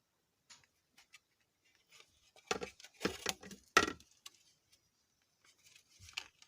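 Hard plastic parts of a mixer grinder body being handled while rubber feet are pushed into the base cover: a few light clicks, then a run of louder knocks in the middle, then a few faint clicks near the end.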